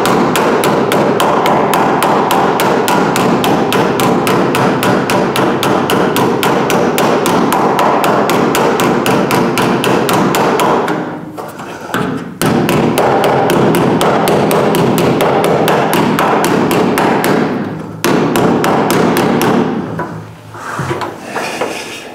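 Steel body hammer striking a sheet-steel patch panel in rapid, even light blows, working a bowl shape into it to match the rear window frame contour. The hammering pauses briefly twice and stops about twenty seconds in, followed by a few lighter handling knocks.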